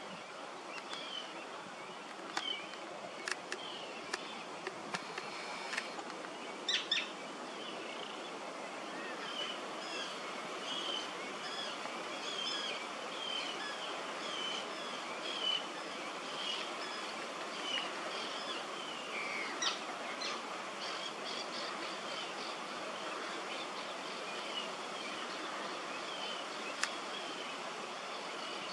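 Steady outdoor hiss with many short, high bird chirps repeating about once or twice a second, and a few sharp clicks in the first seven seconds.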